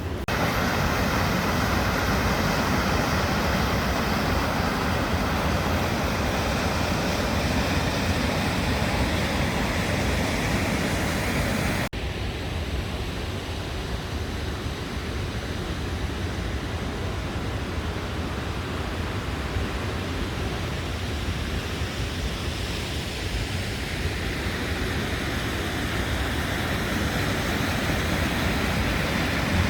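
Steady rushing of a waterfall. About twelve seconds in it cuts abruptly to a duller, steady noise with less treble.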